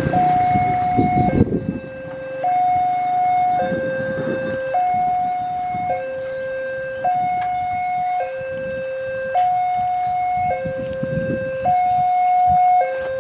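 Railway level-crossing warning alarm sounding an electronic two-tone signal, switching between a higher and a lower tone about once a second, as the barriers come down ahead of an approaching train. A low rumble sits under it in the first second or so.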